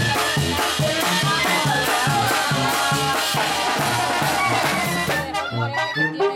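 Banda sinaloense (tambora band) playing live: brass melody over sousaphone bass and drums with a steady, pulsing beat. About five seconds in, the wash of high percussion drops away and the horns carry on.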